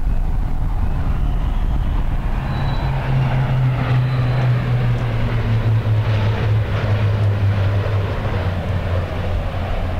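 C-130J Super Hercules four-engine turboprop transports passing overhead in formation. A loud, steady, low propeller drone slowly drops in pitch as they fly past.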